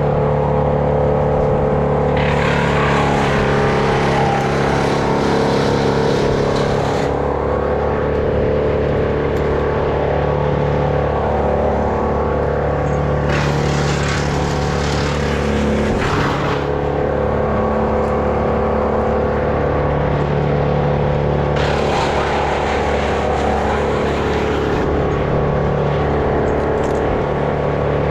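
Stihl MS 201 two-stroke top-handle chainsaw running steadily, with three spells of a few seconds each of harsher, rasping noise as the chain cuts into wood.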